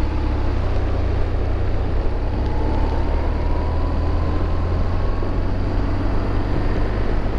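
BMW R1200 GS boxer-twin engine running steadily under way, with heavy wind noise over the microphone. A faint whine rises slightly in pitch a few seconds in.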